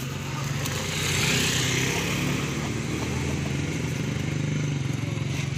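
Motorcycle engine running at low revs close by, a steady low engine note, with a brief rise in hissing noise a second or so in.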